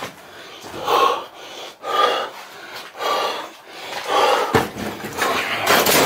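A man breathing hard and fast right at the microphone, about one loud breath a second.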